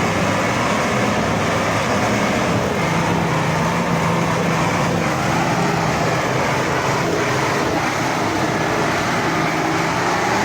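Off-road vehicle engine running steadily with a dense, noisy rumble.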